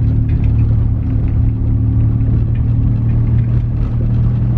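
2019 Toyota Highlander's engine running in a steady low drone, heard from inside the cabin while driving, with its exhaust cut off.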